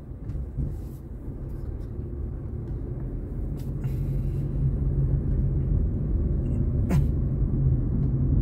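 Car road and engine rumble heard while driving, a steady low noise that grows louder about halfway through, with a brief click near the end.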